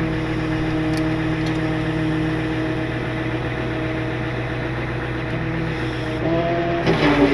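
Wrecker's hydraulic boom being worked, with the truck's engine and hydraulic pump giving a steady hum while the boom extends. The pitch steps up about six seconds in, followed by a brief clatter near the end.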